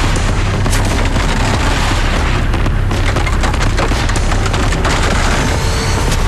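Red deer stags fighting with locked antlers: irregular sharp antler clacks and knocks over a loud, steady deep rumble.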